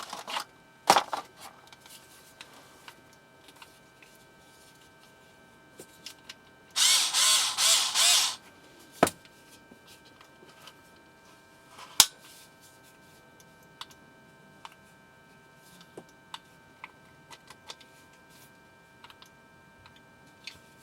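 Packaging and handling noises while a small electric screwdriver is unpacked: a rustling, pulsing burst lasting about a second and a half about seven seconds in, sharp clicks near nine and twelve seconds, and scattered light taps.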